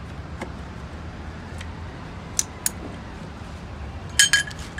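Metal hand tools clinking against the gearbox bellhousing while the clutch release bearing is being taken out: a few scattered sharp clinks, then a quick cluster of ringing clinks near the end.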